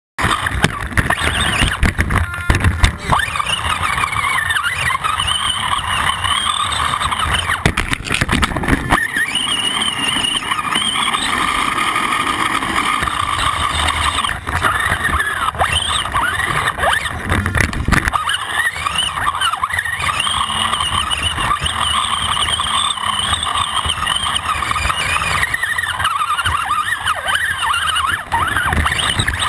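Electric motor and gear drivetrain of an Axial AX10 RC rock crawler whining, the pitch rising and falling with the throttle. Knocks, rattle and scraping come through a camera on its frame as it crawls over rocks and dry leaves.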